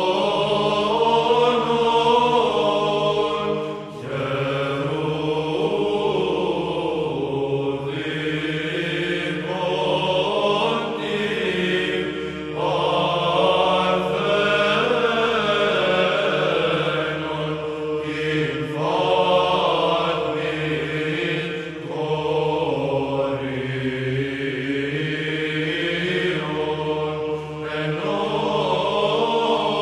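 Byzantine Orthodox church choir chanting a Greek Christmas hymn: a melody sung in phrases over a steady held drone note (the ison), with short breaks between phrases.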